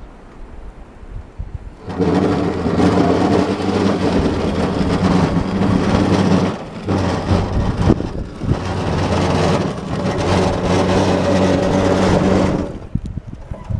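A home-built electric tractor's drive motor running under load with a steady hum as it pushes snow. It starts about two seconds in, drops out briefly in the middle, and stops near the end.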